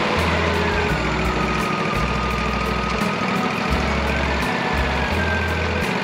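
Wood-Mizer LT40 portable sawmill's engine running steadily, with a whining tone that drops in pitch about a second in and steps back up around four and a half seconds.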